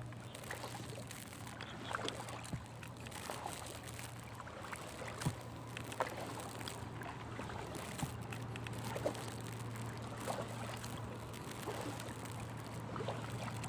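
Double-bladed paddle stroking a small canoe through calm water: soft splashes, drips and light knocks every second or two, over a steady low hum.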